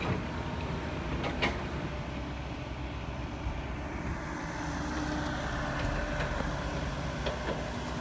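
Heavy diesel engines of a dump truck and an excavator running steadily, low-pitched, with one brief clank about a second and a half in.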